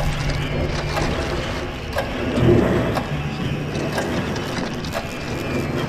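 Designed soundtrack of irregular mechanical clicks and ticks over a low hum that fades in and out.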